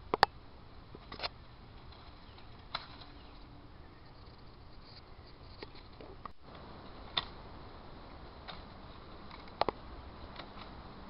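Garden loppers snipping through shrub branches: a handful of sharp clicks a second or more apart, the loudest near the start and near the end.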